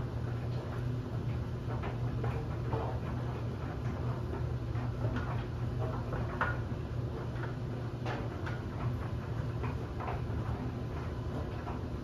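LG DLE7300WE electric clothes dryer running, a steady low hum with irregular light ticks and taps as the load of bed linens tumbles in the drum.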